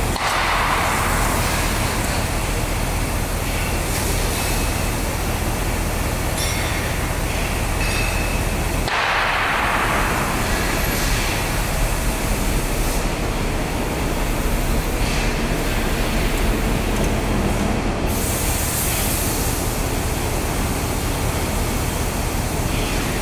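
Truck-mounted crane's engine running steadily during the lift, a loud continuous drone with no breaks.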